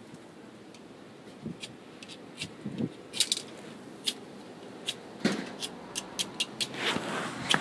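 Flint and steel being struck again and again: sharp, bright scraping clicks that start about three seconds in and come several times a second, with a longer scrape near the end.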